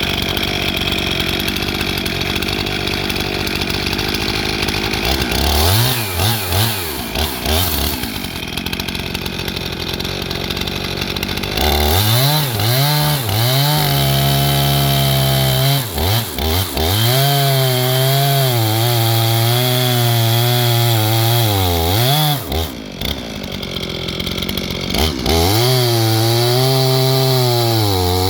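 Skil chainsaw running and cutting into a tree, its pitch dropping under load and rising again over and over, with a few brief dips.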